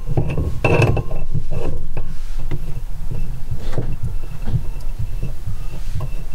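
An adjustable wrench unscrewing the braided supply-line nut from a chrome angle stop valve under a sink: a few metallic clicks and taps in the first two seconds, over a constant low thudding of handling noise.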